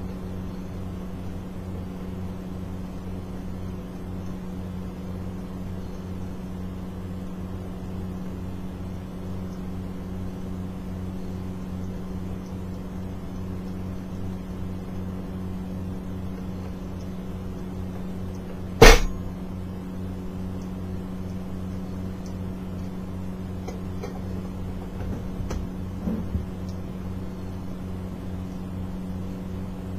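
A steady low machine hum, with one sharp knock about two-thirds of the way through and a few light taps a few seconds later.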